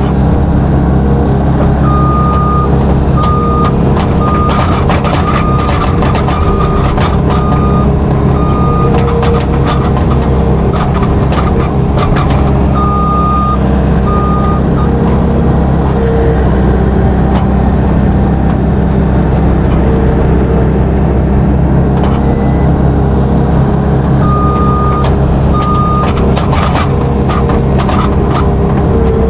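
Heavy engine of farm machinery running steadily close by, its reversing alarm beeping in three spells at about one and a half beeps a second. Scattered knocks and clanks come mostly in the middle and near the end.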